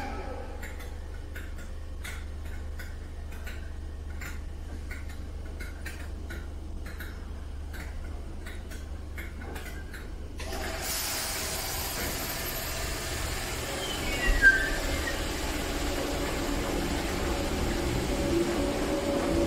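Merseyrail electric passenger train at a station: a low steady hum with scattered light ticks, then about halfway through a louder, fuller rush of noise. A short falling squeal and a single thump follow, and a rising whine builds near the end.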